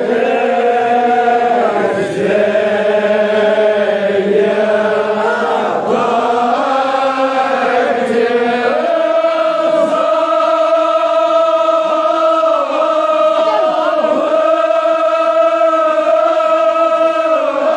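A large crowd of men chanting together in a drawn-out Shia mourning chant (noha), many voices holding long notes; from about nine seconds in the notes settle into a steady held chant.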